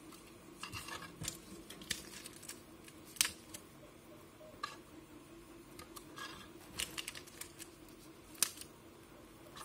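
Handling noise: scattered small plastic clicks and taps as a black plastic SMD tape holder part is turned in the hands and laid on the desk, and self-adhesive dots are picked off their backing sheet. Two sharper clicks stand out, about three seconds in and near the end, over a faint steady hum.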